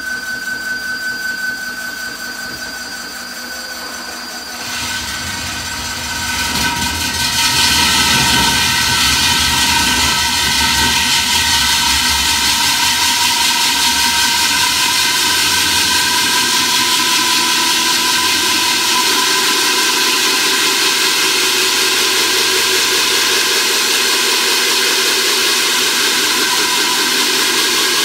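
Hilti rig-mounted diamond core drill running with a steady whine. From about five seconds in it bites into the masonry, growing louder and rougher over the next two seconds, then grinds steadily through the wall.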